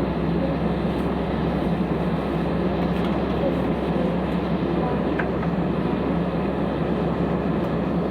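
Steady drone of a jet airliner's cabin on the ground before takeoff: engine and air-conditioning noise at an even level, with faint voices in the background.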